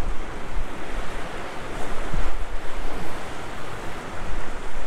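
Lake waves washing and splashing against a rocky shore, with gusts of wind buffeting the microphone.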